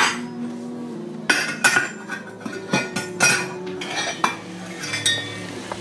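Stainless steel cookpot lid and a metal utensil clinking and clattering against the pot, about a dozen sharp metallic knocks at irregular intervals.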